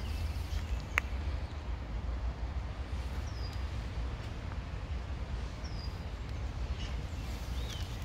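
A small bird chirps three times, each call short, high and falling, over a steady low rumble, with one sharp click about a second in.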